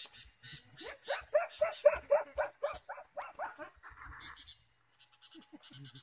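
An animal calling in a rapid series of about a dozen harsh notes, each rising in pitch, at about four a second, stopping a little past the middle. A short hiss follows.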